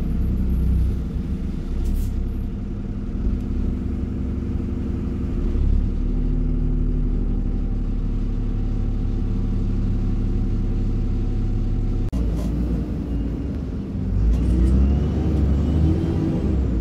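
A bus engine with a ZF automatic gearbox, heard from on board while the bus is under way. The engine runs steadily, then its note shifts about twelve seconds in and rises and falls as it pulls away again.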